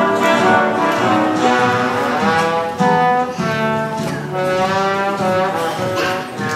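Instrumental accompaniment led by a brass-like melody, held notes with sliding pitch changes over a steady lower part.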